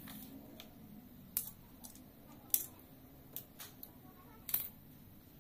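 Tools being set down one at a time on a ceramic tile floor, scissors among them: about five sharp clacks of metal and plastic on tile, spread over a few seconds.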